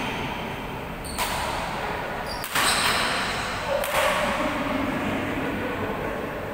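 Badminton rackets striking a shuttlecock in a rally, three sharp hits about a second and a half apart, each ringing on in the echo of a large hall.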